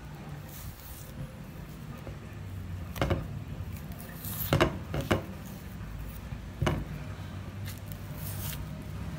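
Ripe bananas being peeled by hand: the skins tear and rustle, with several sharp snaps of stem and peel between about three and seven seconds in.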